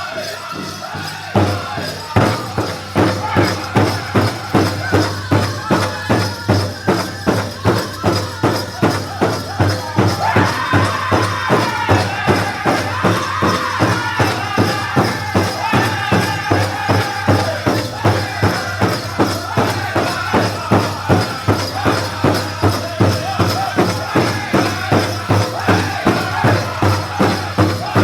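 Powwow drum song: a big drum struck in a steady beat about twice a second, with a group of singers, the singing stronger from about ten seconds in.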